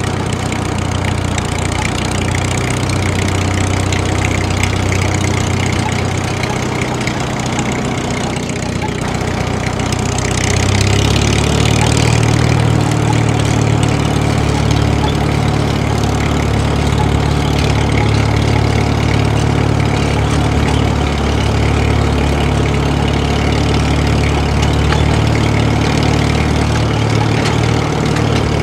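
Diesel tractor engine sound running steadily. About eleven seconds in, its note steps up and gets a little louder, as under load.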